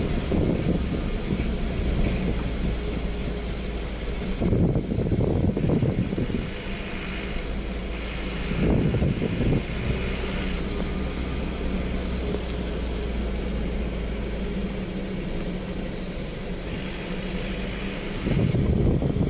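A road vehicle's engine running steadily while driving, with road noise that swells louder a few times.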